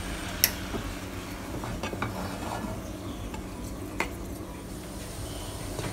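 A long-handled spoon stirring hot, lightly foaming coconut milk in a small non-stick saucepan, with sharp clicks of the spoon against the pan about half a second in and again at about four seconds.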